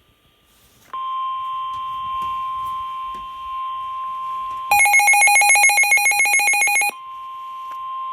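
Emergency alert tones: a steady single-pitch warning alarm tone, typical of NOAA Weather Radio, starts about a second in. About halfway through, a louder, rapidly pulsing electronic beep cuts in for about two seconds, then the steady tone resumes.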